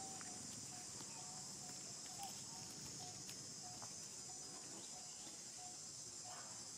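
Steady high-pitched drone of an insect chorus, with a short, lower note repeating about every half second to a second beneath it.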